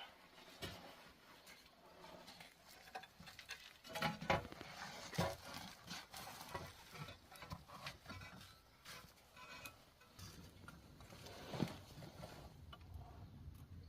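Irregular light knocks, taps and scraping of objects being handled and set down, with a cluster of louder knocks about four to five seconds in and another near the end.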